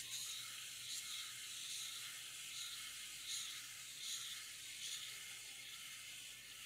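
Faint, soft hiss of a hand-cranked stainless steel rotary apple sheet cutter, its blade shaving a Northern Spy apple into one long thin sheet, swelling slightly about once a second.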